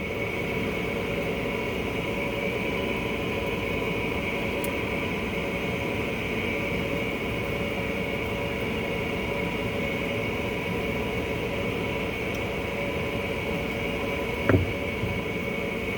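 Steady mechanical hum of running equipment, holding a few fixed tones over an even hiss. One sharp click comes about fourteen and a half seconds in.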